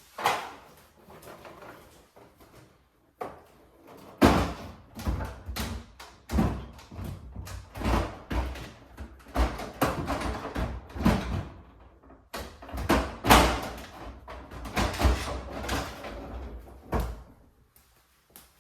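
Refrigerator shelves and drawers being handled and fitted back in: a string of knocks, thuds and sliding clatter of plastic and glass parts. The sound is busiest in the middle and ends in quiet.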